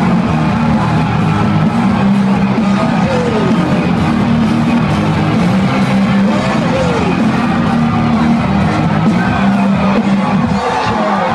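Loud rock music with a large crowd of fans cheering and singing along.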